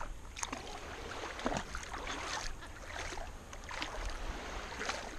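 Shallow sea water sloshing and splashing around a camera held at the surface, with irregular short splashes and no steady tone.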